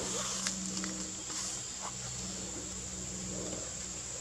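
Insects chirring steadily in one high, unbroken band over a low steady hum. A few faint clicks of a small metal pick tool being handled come about half a second and two seconds in.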